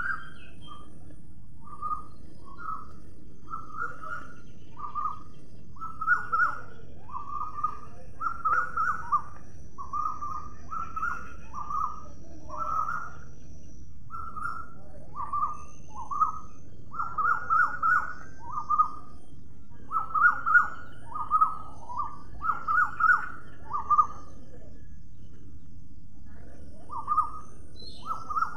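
A bird calling over and over in short chirping notes, an irregular run that gets louder in the second half, over a faint steady background hiss.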